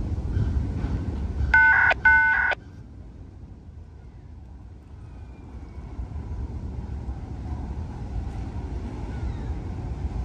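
Freight train cars rolling past with a steady low rumble. About a second and a half in, two short, loud horn-like beeps sound. Then the rumble drops sharply and slowly builds back up.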